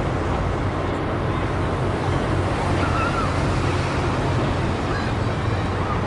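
Steady city street noise: a continuous wash of road traffic with a low hum underneath, and a few faint short chirps.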